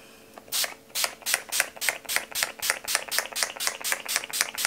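Beauty Bay Mattifying Setting Mist fine-mist pump bottle sprayed in quick repeated pumps, a fast run of short hisses about six a second, starting about half a second in.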